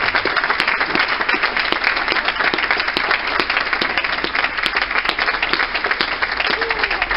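A small group of about a dozen people applauding, many hands clapping at a steady, fairly loud level.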